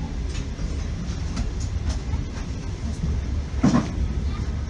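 Russian Railways passenger carriage running along the track, heard from inside the car: a steady low rumble with the clatter of wheels over the rails, a few faint knocks and one louder knock about three and a half seconds in.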